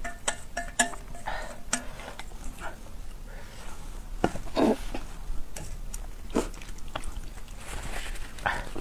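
Chopsticks stirring and mixing saucy noodles in a glass bowl, with scattered light clicks and knocks against the bowl. A steel bowl cover is lifted off at the start, and there is a brief vocal sound about halfway through.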